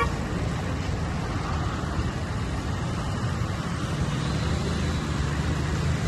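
An engine running steadily: a continuous low rumble that stays even throughout.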